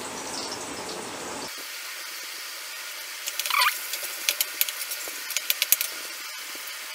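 Carrot and spring onion sizzling in hot oil in a metal kadhai. From about three seconds in, a metal spatula scrapes and clicks against the pan in a quick run of sharp taps.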